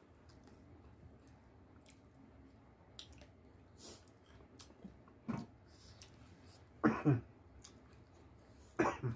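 Close-up eating sounds: chewing, wet mouth clicks and lip smacks as food is eaten by hand. Three short throaty vocal sounds break in, about five, seven and nine seconds in, the middle one the loudest.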